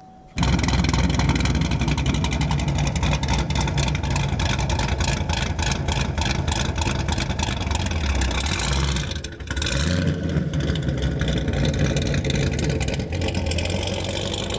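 Cammed Chevrolet Camaro LS V8 held at high revs while doing donuts, with the rear tyres spinning. It starts suddenly about half a second in, and the engine note dips briefly about nine seconds in before climbing again.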